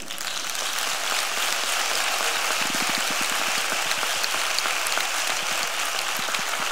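Audience applauding, a dense patter of many hands clapping that starts as the talk ends and keeps up steadily.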